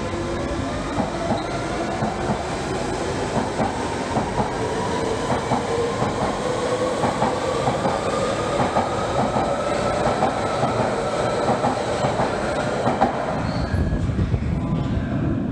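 London Underground Central line 1992-stock train pulling out of a platform: its traction motors whine in a steadily rising pitch as it gathers speed, over repeated wheel clicks on the rails. The whine fades near the end as the train draws away into the tunnel, leaving a low rumble.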